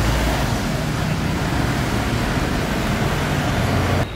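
Road traffic noise with the low drone of a vehicle engine running close by, steady until it cuts off abruptly near the end.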